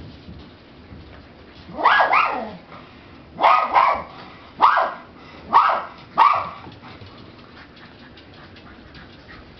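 A dog gives about five high-pitched yelping barks in quick succession, from about two seconds in until just after six seconds. The first bark is drawn out and falls in pitch.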